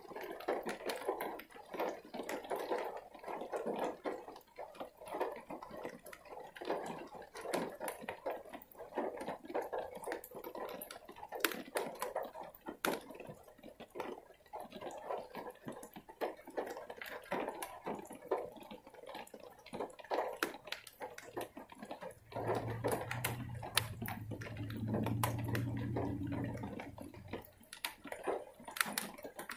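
Heavy rain falling and dripping close by: a dense, uneven patter of drops splattering. About three quarters of the way through, a low steady hum joins for some five seconds.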